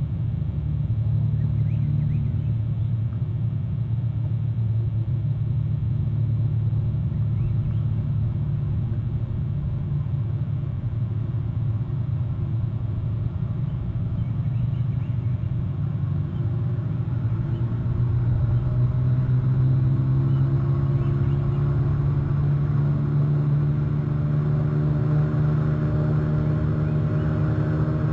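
Low, steady rumble of a distant engine. About halfway through, a droning hum builds and grows a little louder as the motor draws nearer.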